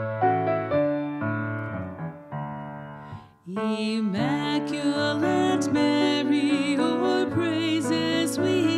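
Piano playing slow, struck chords that die away and fade down. About three and a half seconds in, a singer comes in with a wavering vibrato over held keyboard accompaniment, as a hymn begins.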